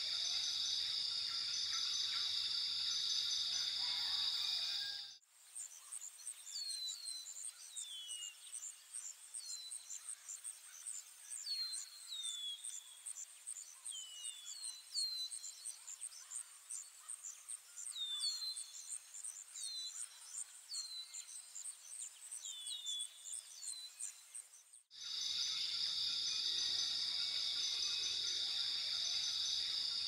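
Jungle insect chorus: a steady high-pitched insect drone that switches abruptly about five seconds in to a rapid, very high insect trill with short falling bird chirps scattered through it, then switches back to the steady drone about five seconds before the end.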